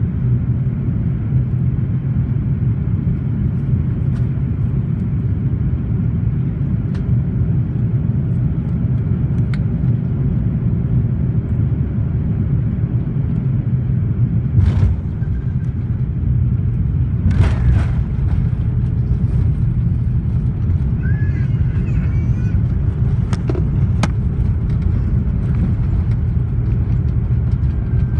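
Cabin noise of a Korean Air Airbus A330 landing: a steady low rumble of engines and airflow. A thump about halfway through and another about three seconds later mark the wheels meeting the runway.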